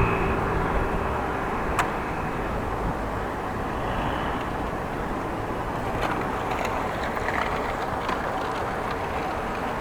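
Steady noise of riding a bicycle along a road: wind and rolling rumble on the rider's camera, with one sharp click about two seconds in.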